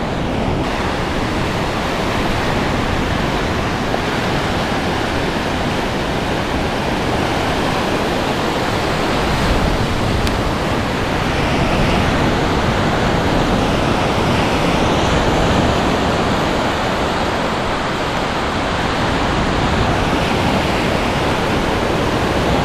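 Ocean surf: a steady rush of waves breaking and washing up the beach, swelling slightly now and then.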